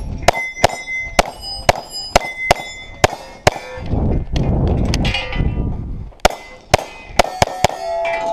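A string of pistol shots at steel targets, each hit answered by the clang and ring of a steel plate. About ten quick shots come in the first three and a half seconds, then a break with a rushing noise, then a second burst of six or so shots about six seconds in.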